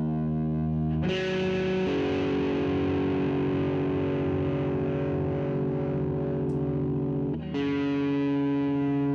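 Distorted electric guitar with P90 pickups letting long chords ring, a new chord struck about a second in and another near the end. The flanger pedal is switched off, and the tone passes through with no flanger colour.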